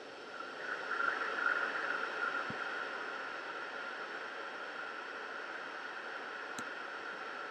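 Steady rushing noise with a faint hum in it, a little louder about a second in, and a couple of faint clicks.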